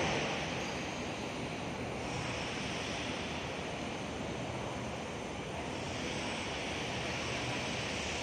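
Steady running noise of a mechanical power press's motor and flywheel, an even hum with no press stroke or impact heard.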